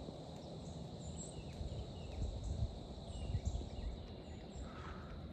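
Quiet woodland ambience: a low wind and handling rumble, with faint short falling chirps of small birds scattered through and a faint steady high whine.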